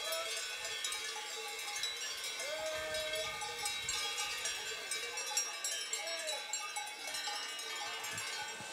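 Many cowbells clanging and ringing continuously as a herd of cows moves and grazes on the pasture. A few short wavering calls sound over the bells, near the start, about two and a half seconds in and about six seconds in.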